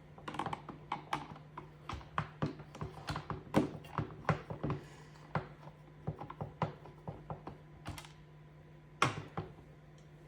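Screwdriver working the screws and plastic covers of a portable fan: quick irregular small clicks and taps, thick at first and thinning out, with a couple of louder knocks near the end. A steady low hum runs underneath.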